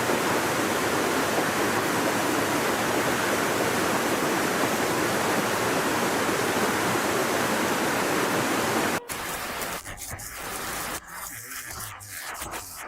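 Steady rush of floodwater, a dense even noise, which cuts off abruptly about nine seconds in to a quieter, uneven water sound with a few sharp ticks.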